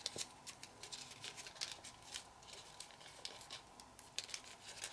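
Folded printer paper being handled: faint, irregular crinkles and small crisp rustles as a pleated flap is slid out and pivoted between the fingers.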